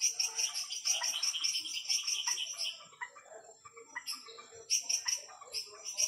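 Night chorus of tropical frogs: many rapid clicking and chirping calls overlapping, dense at first, then thinning to scattered calls about three seconds in.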